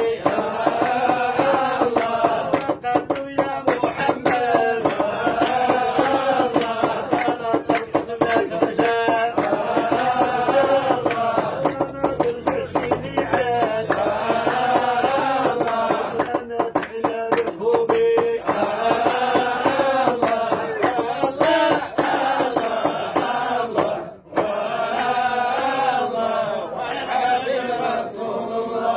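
Men's voices chanting madih, devotional praise of the Prophet in a Sufi dhikr, in long melodic phrases that rise and fall, with a brief break about 24 seconds in. Sharp percussive hits keep time under the chant.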